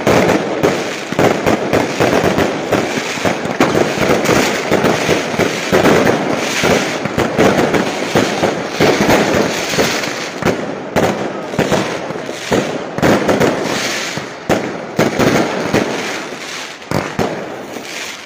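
Fireworks and firecrackers going off in rapid, unbroken succession: a dense crackle of many sharp bangs.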